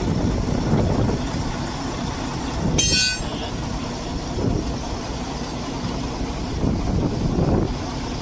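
A heavy truck's engine idling with a steady low rumble. About three seconds in there is a brief high-pitched squeal.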